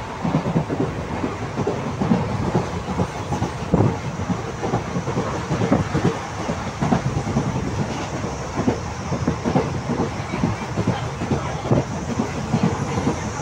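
Indian Railways passenger train running at speed, heard from inside the coach: a steady rumble with the wheels clattering over the rail joints in an uneven stream of knocks.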